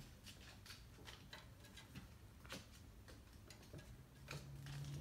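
Faint, irregular light clicks and taps of a kitten playing with a toy on a hardwood floor: paws, claws and toy striking the boards. A low hum begins to rise near the end.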